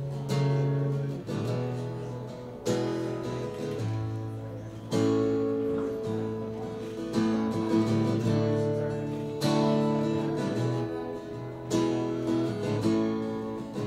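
Solo acoustic guitar playing a slow instrumental introduction: strummed chords left to ring, with a strong new chord about every two seconds and lighter strokes between.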